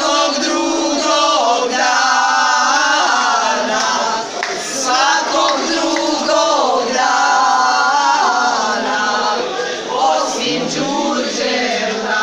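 A group of women singing together in chorus, with long held notes.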